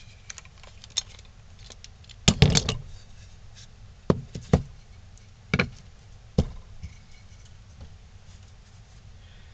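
Wooden carving pieces and a bar clamp being handled and set down on a hard tabletop. A quick cluster of knocks a little over two seconds in is the loudest. Four single knocks follow over the next four seconds.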